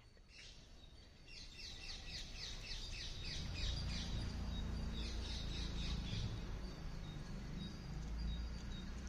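Birds chirping: rapid runs of short, high, falling notes for the first few seconds and again around the middle, over a low rumble.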